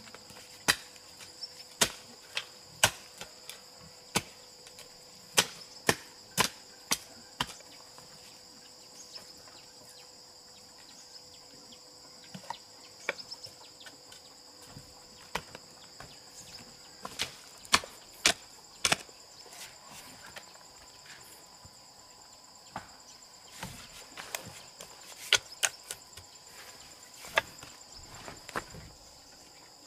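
Irregular sharp blows of a hand tool, coming in quick runs with a lull of a few seconds partway through, over a steady high-pitched drone of insects.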